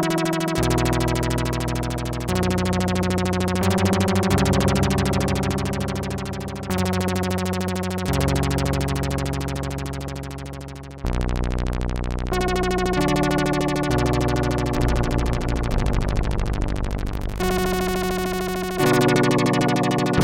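Sequential Prophet-6 analog polyphonic synthesizer, played dry without effects, holding sustained chords. A new chord comes every couple of seconds and each one slowly fades away. Some chords pulse with a slow beating.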